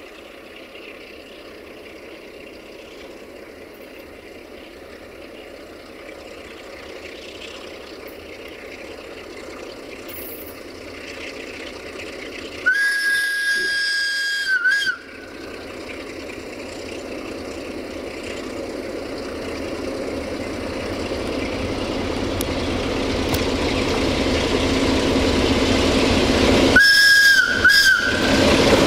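An approaching diesel train grows steadily louder and sounds its horn: one long blast about halfway, then two short blasts near the end.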